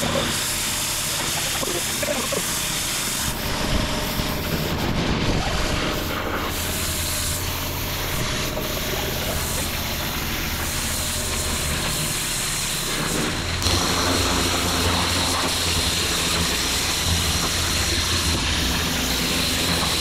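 Pressure-washer lance blasting a high-pressure water jet onto block paving, a steady hiss of spray as it strips moss and weeds from the joints, with a low steady drone of the machine underneath. About two-thirds through, the spray sound shifts and gets slightly louder.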